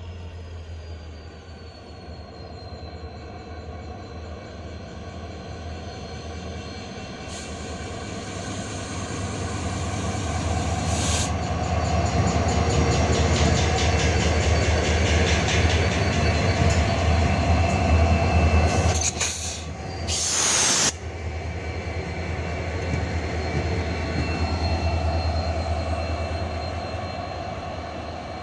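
Several WDG4 diesel-electric locomotives hauling a goods train slowly past: a steady low engine drone with wheel and rail noise, growing louder as the locomotives come close and easing off afterwards. A short loud burst of hiss about two-thirds of the way through.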